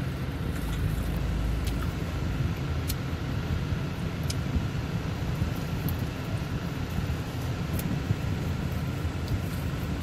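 Steady low rumble of a car's idling engine heard inside the cabin, with a few faint clicks.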